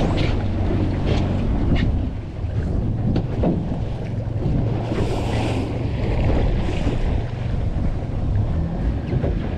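A fishing boat's motor running steadily under wind buffeting the microphone, with a few light knocks.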